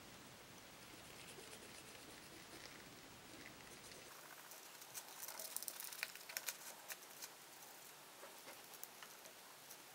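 Faint scratching and light clicks of a cotton swab scrubbing the plastic bobbin of a Seymour Duncan SH-13 Dimebucker pickup, busiest about halfway through, as wax and solvent residue is cleaned off.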